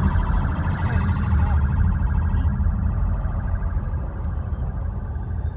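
Police car siren wailing with a fast pulsing warble, heard from inside a moving car over steady road rumble; the siren fades out about two to three seconds in.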